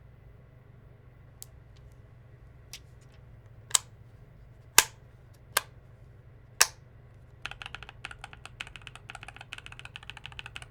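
Nuphy Air75 V2 low-profile mechanical keyboard: a handful of separate sharp clicks spaced about a second apart, then fast, continuous typing from about seven seconds in.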